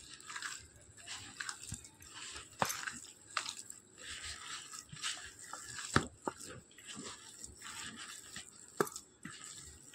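Raw minced meat, gram flour and spices being mixed together in a plastic bowl: soft, irregular wet mixing sounds with scattered short clicks.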